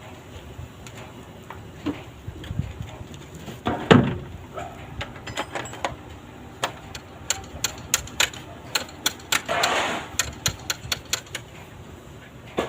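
Metal hand tools working on bolts: a heavy knock about four seconds in, then a long run of sharp, irregular clicks and taps with a brief scrape near the end.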